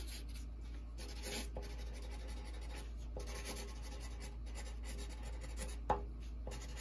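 Felt tip of a Sharpie marker dragging across drawing paper in quick, irregular sketching and lettering strokes, with one short tap about a second before the end.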